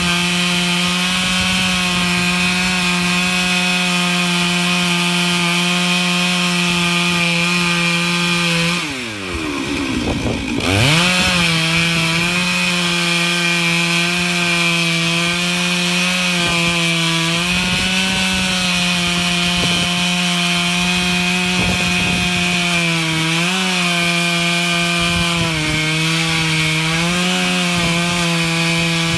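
Stihl MS 661 two-stroke chainsaw running at high revs in a Granberg Alaskan chainsaw mill, ripping through a pine log with a steady note. About nine seconds in, the engine note drops sharply and then climbs back, running on slightly lower under the cut.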